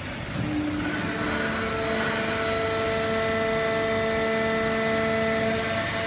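Fully automatic horizontal hydraulic baling press and its feed conveyor running: a steady mechanical noise with a whine of several held pitches that comes in within the first second or so and then holds level.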